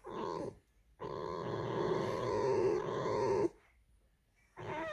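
Pet fox making its creaking, growling warning call in drawn-out bouts: a short one, then one lasting about two and a half seconds, and another starting near the end. It is a defensive call at a person too close to where it lies.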